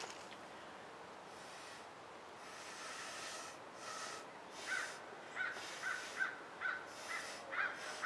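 A crow cawing over and over, starting about halfway in: a run of short calls at about two a second, over soft washes of breathy, hissing noise.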